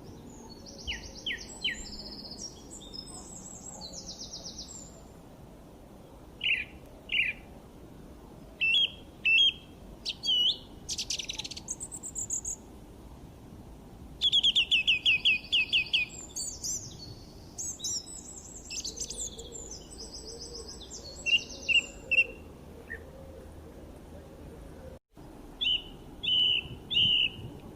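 Songbirds singing and chirping in separate phrases of high trills and quick runs of repeated notes, with short pauses between them, over a faint steady background hiss. The audio drops out for an instant near the end.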